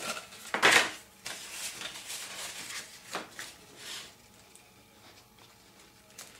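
Handling noises from hands working a cardboard box lid and a glue bottle: a sharp clatter under a second in, then light rustles and taps, fading to faint room tone for the last couple of seconds.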